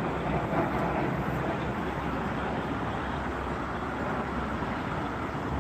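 Twin-engine jet airliner on final approach passing low, a steady rush of jet engine noise.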